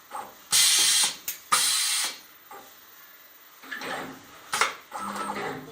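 CNC wire-bending machine at work: two loud bursts of hiss, each about half a second long, in the first two seconds, followed by clicks and knocks from the bending mechanism.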